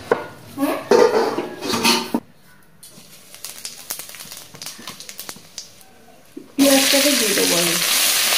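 A metal spatula clicks and scrapes in a wok holding a little hot oil and seeds. About two-thirds of the way in, sliced onions hit the oil and a loud, steady frying sizzle starts suddenly and carries on as they are stirred.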